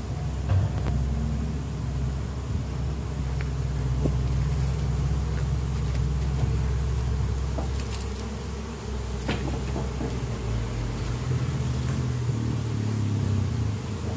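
Low, steady engine-like hum that thins out near the end, with honeybees buzzing around and a few light knocks.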